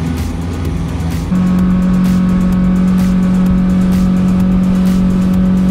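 A boat's 150 hp outboard engine running at steady cruising speed: an even, loud drone over the rush of wind and water, jumping louder about a second in and then holding constant pitch.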